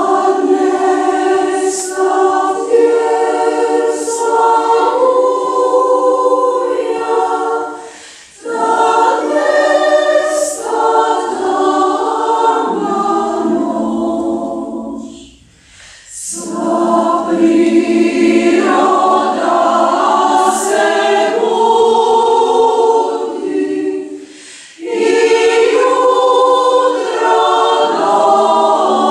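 Women's choir singing in several parts, in long phrases broken by short pauses for breath about every seven to eight seconds.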